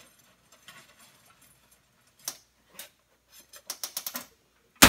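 Stick welding electrodes clicking against each other and the metal rod oven as a handful is taken out: a few light ticks, then a quick run of clicks near the end and one loud sharp clack right at the end.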